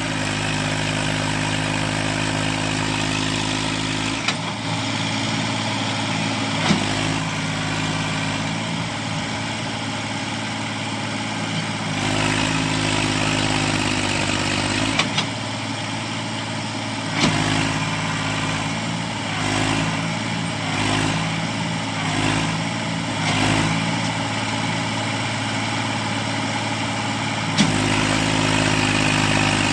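Massey Ferguson 241 DI tractor's three-cylinder diesel engine running hard, pulling a sugarcane-laden trolley that is bogged in a soft field. The engine note shifts several times as the throttle and load change, with a few short sharp knocks.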